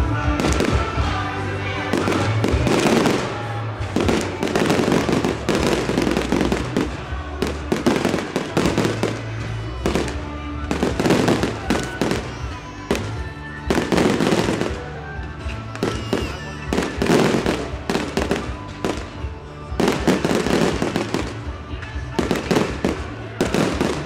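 Fireworks display: a rapid, continuous run of bangs and crackling from aerial shells bursting, with music playing underneath.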